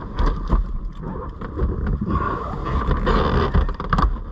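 Two people grappling inside a car's cabin: irregular thumps, knocks and rustling as bodies and clothing shift and press against the seats and door panels.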